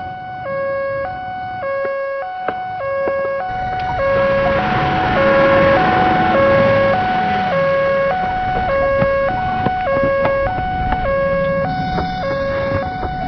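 Ambulance siren sounding a two-tone hi-lo wail, switching between two pitches about every half second. Vehicle rumble beneath it grows louder about four seconds in.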